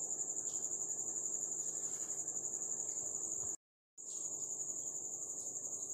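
Crickets chirping: a steady, high-pitched pulsing trill, which drops out for a moment a little past halfway.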